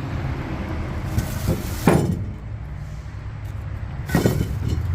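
A few sharp metallic knocks and clinks as turbochargers are handled and set down, three in all, over a steady low rumble.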